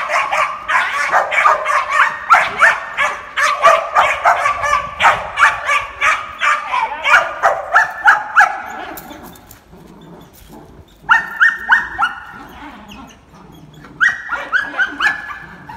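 A young puppy, about two and a half months old, barking in rapid high-pitched yips, several a second, while tugging at a rag during bite training. The barking pauses, then comes back in two shorter bursts.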